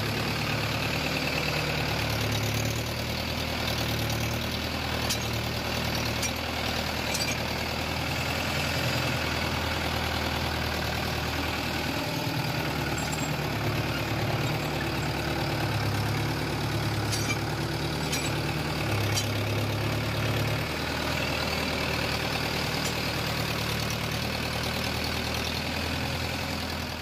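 Mahindra Yuvo tractor's diesel engine running steadily while the tractor is driven along, with a few light clicks.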